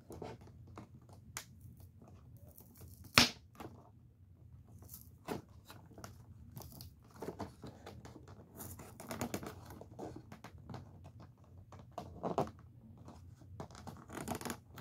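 A toy's cardboard box being worked open by hand: scattered tearing, crinkling and clicking of the packaging, with one sharp click about three seconds in.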